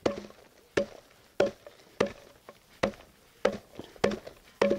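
Green fodder stalks being chopped by hand with an axe blade against a sheet on the ground: about eight steady chops, one every half second or so, each a sharp dull thwack. The forage is being cut into short pieces, under about 3 cm, for silage.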